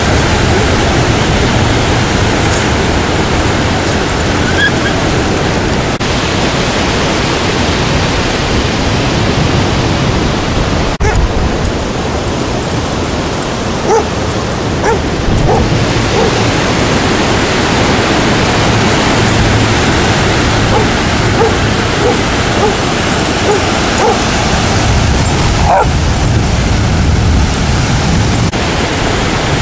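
Dogs barking and yipping in short, scattered calls, most of them in the middle and later part, over a loud steady rush of surf and wind on the beach.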